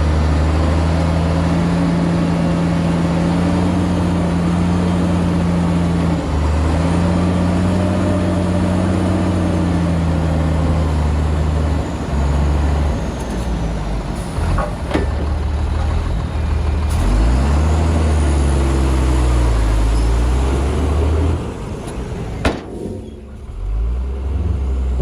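Heavy diesel engine of earthmoving machinery running and revving, its pitch rising and falling. The engine sound eases off about 21 seconds in, with a sharp click soon after.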